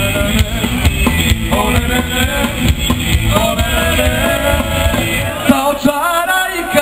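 Live rock band: a singer's vocals over electric guitar, bass guitar and a drum kit. Near the end the drums and bass drop away, leaving the voice and guitar.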